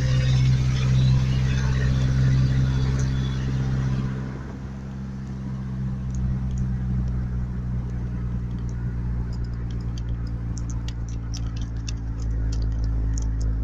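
Truck running, heard from inside the cab: a steady low engine hum with road noise that dies down about four seconds in. Light, irregular ticking comes in after that and grows busier toward the end.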